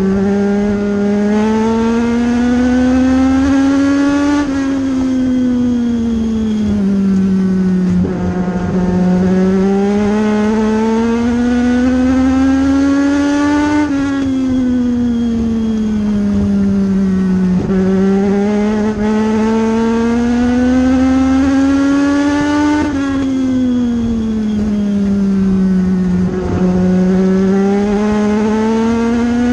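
Legends race car's Yamaha four-cylinder motorcycle engine at racing speed, heard from inside the car. The engine note climbs steadily along each straight, then drops off abruptly and sinks through each corner. This happens three times, about one lap every nine seconds.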